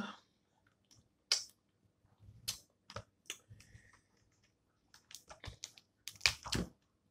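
Cooked snow crab legs being handled, their hard shells clicking and snapping in scattered sharp cracks. The loudest cluster comes near the end.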